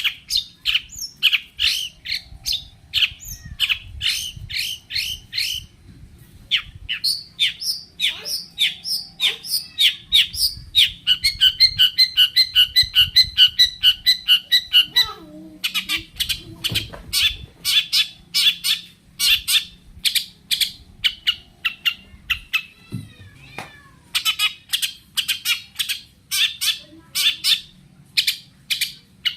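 Long-tailed shrike (cendet) singing a loud, rapid string of harsh, chattering chirps, with a fast, even trill in the middle and a short pause partway through.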